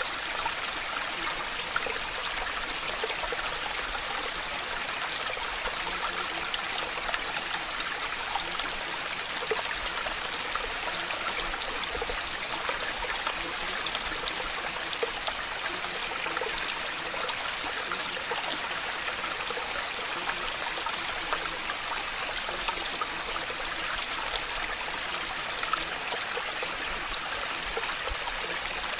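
Steady, unchanging rain noise: a dense patter of drops with no pauses, serving as the cover sound of a subliminal audio track.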